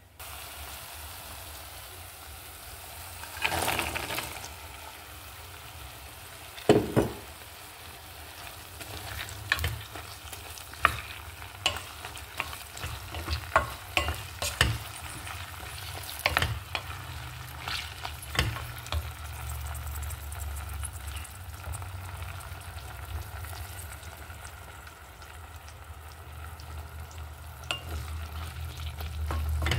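Chopped chilies and onion frying in oil in a metal pot, sizzling steadily, while a wooden spoon stirs them with many short knocks and scrapes against the pot. The mix is being cooked down and caramelized into chili oil.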